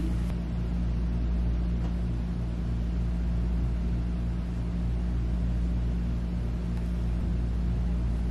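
A steady low hum with a regular pulsing flutter in it, unchanged throughout.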